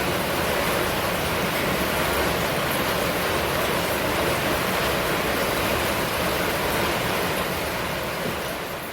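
Steady rain falling as a dense, even hiss with no distinct drops standing out, fading out near the end.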